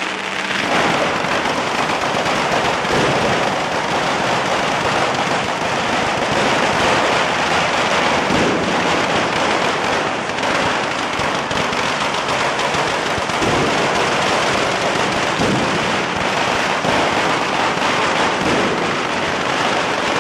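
Fireworks mounted on a ceremonial cart going off continuously: a dense, rapid crackle of small firecrackers and pops, with a few louder bangs standing out now and then.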